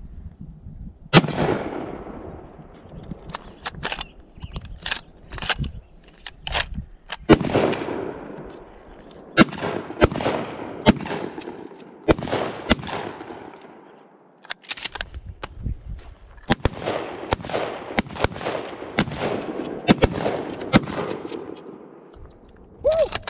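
A gun fired shot after shot at an uneven pace, often one to two shots a second, each shot with a long echoing tail, until a full magazine is emptied.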